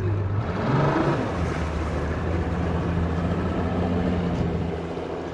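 An engine running with a low, steady drone; its pitch shifts about a second in, then holds steady and eases slightly near the end.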